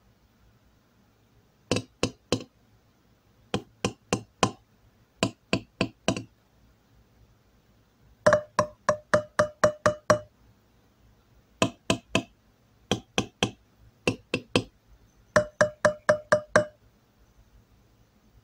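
A metal spoon tapping the metal lids of glass jars of home-canned fruit in syrup, in short quick runs of taps, jar after jar. Some runs ring with a clear tone and others are short dull clicks: the sound of each lid tells whether that jar is vacuum-sealed or has air inside.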